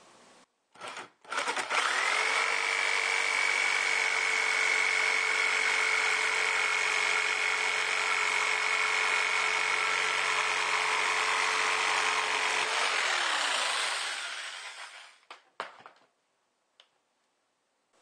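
Electric jigsaw cutting across a wooden 2x2: the motor spins up about a second in, runs at a steady pitch for about eleven seconds, then winds down. A few light clicks follow.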